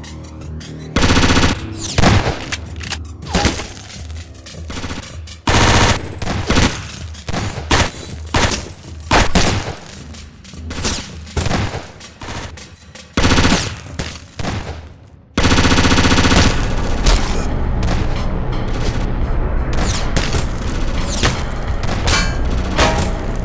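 Gunfire sound effects dubbed over cardboard prop rifles: bursts of rapid automatic fire with scattered single shots between them, then a long unbroken barrage from about two-thirds of the way through.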